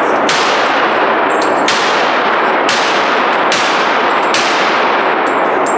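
Five gunshots fired about a second apart, each one ringing out and running into the next.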